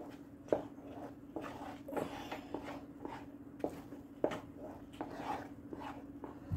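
Wooden spatula stirring and scraping a thick, sticky singhara (water chestnut flour) barfi mixture around a metal kadhai, the mixture stiff enough to pull away from the pan's sides: irregular scrapes and soft knocks about two a second, over a steady low hum.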